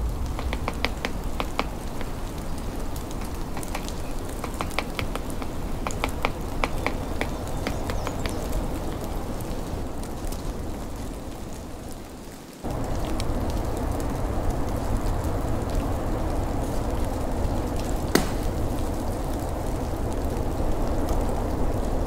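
Northern flicker pecking at a weathered wooden post, short bouts of sharp taps several per second, over a steady hiss of the snowstorm.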